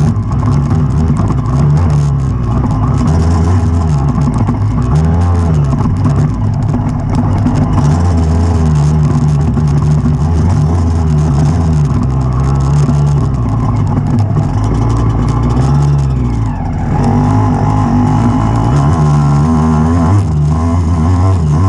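Enduro dirt bike's engine pulling hard over rough ground, its pitch rising and falling again and again as the throttle is worked and gears change, heard close up from the handlebars. About sixteen seconds in it briefly drops off before picking up again.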